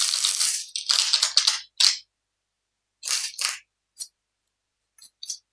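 Tarot cards being shuffled and handled by hand: a run of short papery rustles, busiest in the first two seconds, then a few shorter ones as a card is picked out.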